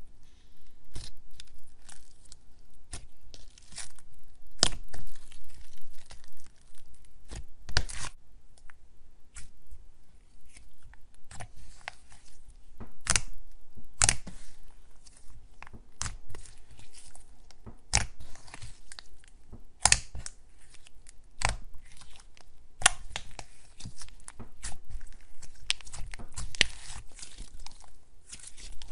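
Hands squeezing, poking and stretching soft pastel slime, making irregular sharp clicks and pops with a soft crackle between them.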